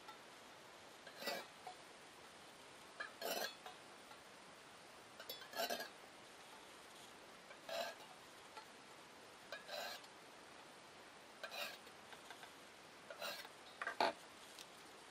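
Steel divider points scraping across a polished metal disc in short scribing strokes, about one every two seconds, the sharpest one near the end.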